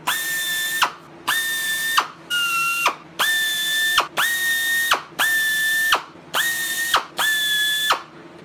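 Pneumatic air drill running in eight short bursts, each a steady whine with air hiss, one burst about two and a half seconds in lower in pitch. It is match-drilling holes through the RV-7 elevator's aluminium stiffeners into the skin.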